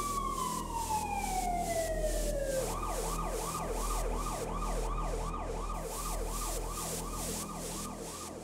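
Emergency vehicle siren: a slow wail falling in pitch, which switches about two and a half seconds in to a fast yelp of about three or four sweeps a second.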